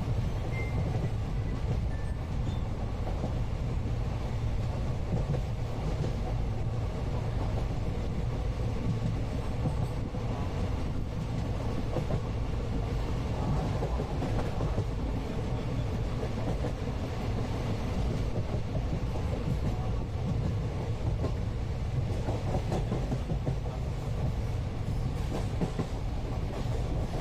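Steady low rumble of a moving Indian passenger train heard from inside the coach, with faint clatter of the wheels on the track.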